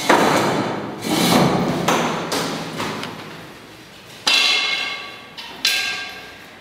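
A series of hard knocks: three heavy blows in the first three seconds, then two sharper strikes later that each leave a ringing, metallic-sounding tone fading away.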